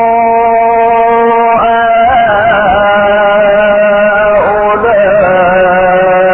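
A man's voice reciting the Quran in drawn-out melodic chant. He holds long steady notes and bends them into ornamented turns of pitch about two seconds in and again near five seconds.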